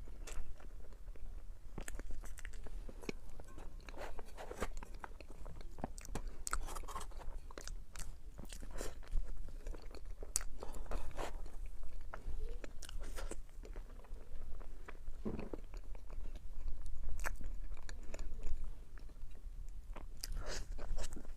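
A person biting into and chewing chocolate desserts up close, with irregular crisp crunches and mouth clicks, over a low steady hum.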